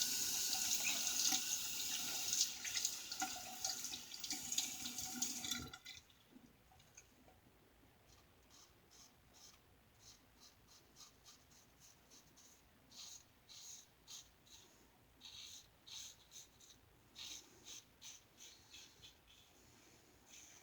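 Tap water running into a sink, shut off suddenly about six seconds in. Then a run of faint, short scraping strokes in small groups: a Gem single-edge safety razor cutting through lathered stubble.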